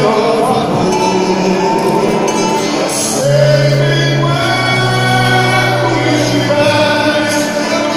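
Live gospel worship music: a singer with a band playing loudly, with long held bass notes under the singing.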